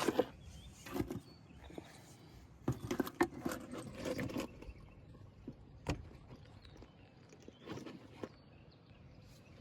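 Intermittent rustling and clicking, with a sharp single click about six seconds in.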